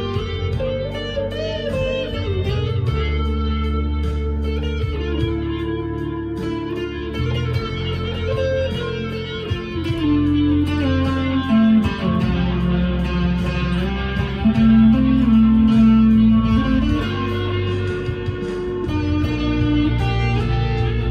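Harley Benton SC Custom II electric guitar played through an amp's crunch channel, a single-note lead melody with bent notes over steady low notes that shift every few seconds.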